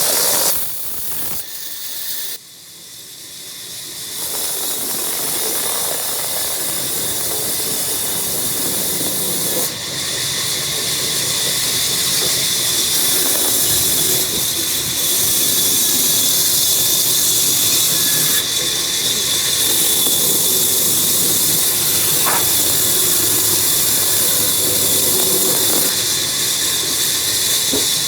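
Woodworking machine cutting wood: a loud, high-pitched hissing whine. It drops away about a second in and builds back up over the next few seconds, then holds steady.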